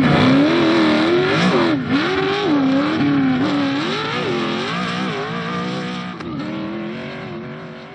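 Racing engine revving up and down repeatedly, its pitch rising and falling every second or so, fading out over the last couple of seconds.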